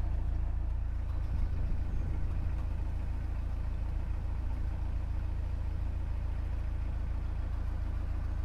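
Narrowboat engine running steadily as the boat cruises, a low, even engine note that does not change.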